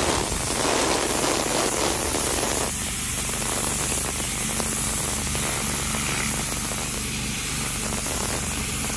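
Pressure-washer wand spraying a high-pressure jet onto a concrete sidewalk: a steady, even hiss of water on concrete, with a steady low hum underneath.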